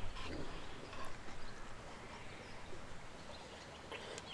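Faint clinks of a metal spoon stirring in a metal camping cup, a few light taps in the first second or so, over quiet outdoor ambience.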